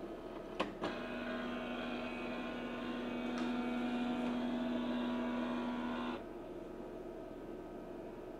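HP LaserJet M1132 MFP laser printer going through its power-on warm-up cycle: two sharp clicks, then its internal drive mechanism runs with a steady whine for about five seconds and stops abruptly. After the repair the printer now runs this start-up cycle instead of sitting with its lights fixed.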